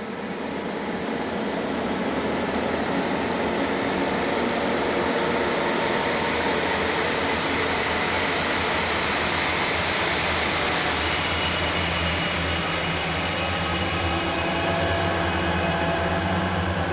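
Horror 'ghostly presence' sound effect: a dense rushing, hissing drone with a low rumble underneath that fades in and then holds steady. Faint sustained tones rise out of it about two-thirds of the way through.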